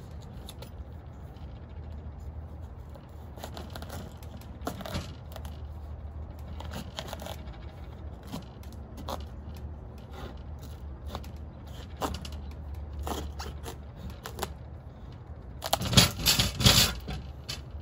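A chef's knife works through the hard rind of a spaghetti squash on a plastic cutting board, making irregular scraping and crunching clicks. Near the end there is a louder cluster of cracks and knocks as the squash splits into two halves.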